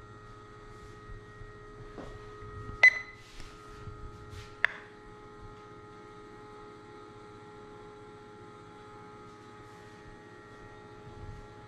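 Handheld infrared thermometer clicking twice as it takes new readings; the first click, about three seconds in, has a short high beep. A steady hum runs under it.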